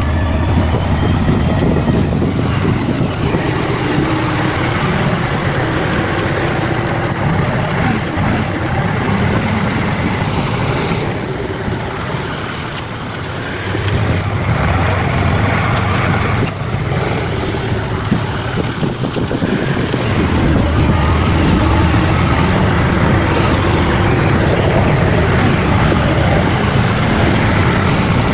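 Bulldozer's diesel engine running steadily, easing off a little about halfway through and then picking back up.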